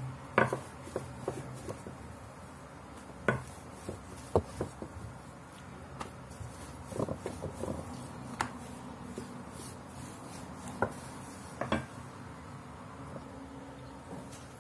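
A long thin wooden rolling pin (oklava) rolling out thin börek dough on a floured silicone mat, a soft rubbing with scattered sharp wooden knocks and taps spread through it.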